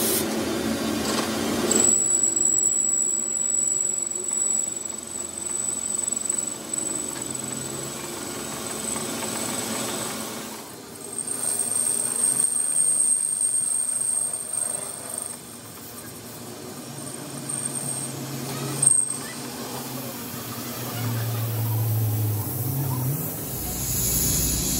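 Metal lathe turning a steel shaft sleeve with a carbide-insert cutting tool: a steady high-pitched whine over a low running hum. The whine breaks off briefly partway through, and there is a sharp click near the end.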